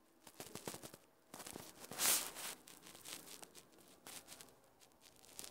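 Faint rustling and scattered clicks, with one louder rush of noise about two seconds in.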